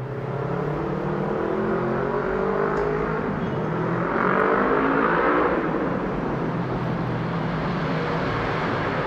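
Boeing 787-9 jet airliner passing overhead on its descent to land, a steady engine rumble with slowly falling tones. It swells a little about four seconds in.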